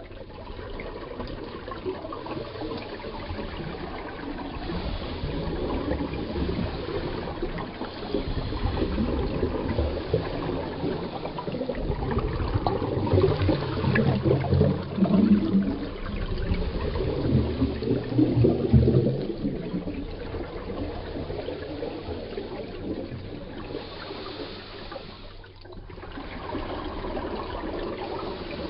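Underwater sound of a scuba diver's breathing: regulator exhaust bubbles rushing and gurgling past the camera housing, swelling louder through the middle.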